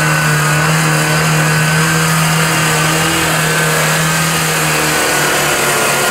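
UAZ-469 off-roader's engine held at high revs under load as it climbs a steep muddy slope. The pitch stays steady, with a brief dip about five seconds in.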